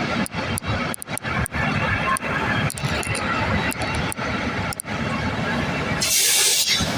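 Fire trucks' engines running, a steady noise broken by brief dips, with a short loud hiss about six seconds in.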